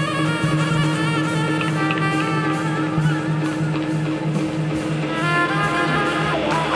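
Live band jamming: drum kit keeping a steady beat under bass, with guitar and violin lines on top; a new melodic phrase comes in about five seconds in.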